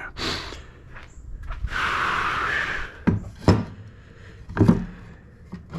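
Cut wooden boards being handled: one board slides or scrapes against another for about a second, then several knocks as the pieces are set down.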